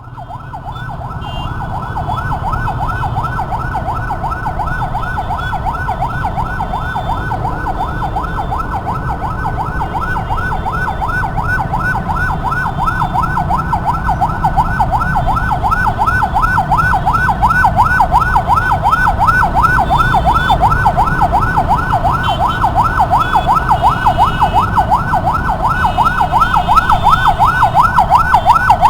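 Ambulance siren in a fast yelp, its pitch sweeping up and down several times a second and getting louder toward the end. A low rumble of traffic runs beneath it.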